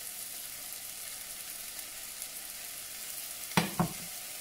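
Onion, garlic and ginger sizzling steadily as they sauté in pots on the hob, with chopped tomato just added. Near the end come two sharp knocks a fraction of a second apart.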